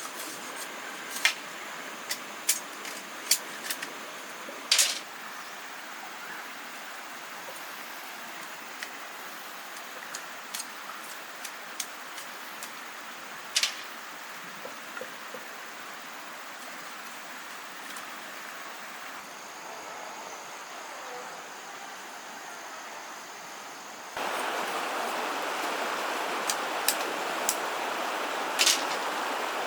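Scattered sharp knocks and clicks over a steady background hiss. About 24 seconds in, the background jumps to a louder, even rush like running water, with a few more knocks on top.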